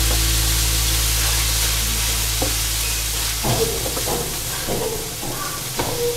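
Diced chicken sizzling with soy sauce in a nonstick frying pan, with a plastic slotted spatula scraping and knocking against the pan as it is stirred from about halfway through. Background music fades out over the first few seconds.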